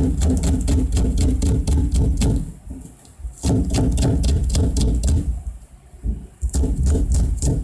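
Kitchen knife slicing a green onion into thin rings on a cutting board: quick, even chops, about five or six a second, in three runs with short pauses between them.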